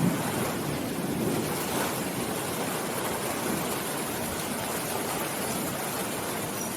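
Steady rain falling, an even hiss with no break, as the low rumble of thunder dies away right at the start.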